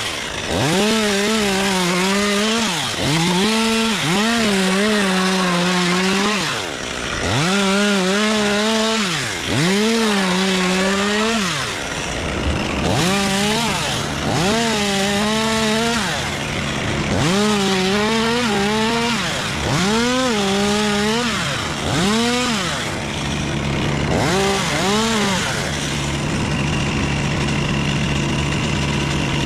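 Chainsaw cutting palm wood, its engine revving up and dropping back over and over as it bites and is let off. Near the end it settles to a steady, lower-pitched idle.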